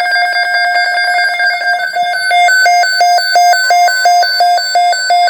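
Emergency Alert System alert tones: loud electronic beeping that alternates between two pitches about three times a second, with a further steady tone joining near the end.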